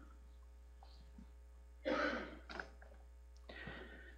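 Brief rustling and shuffling noises, the loudest about two seconds in and a softer one near the end, over a steady low electrical hum.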